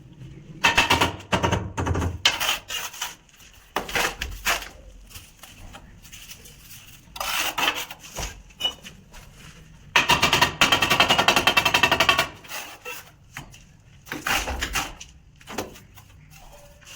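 Masonry work on a concrete slab: bursts of rapid rattling knocks, several short ones and one longer run of about two seconds some ten seconds in.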